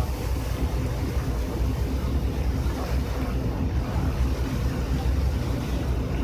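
Ferry engine running with a steady low drone, under the rush of water along the hull and wind buffeting the microphone.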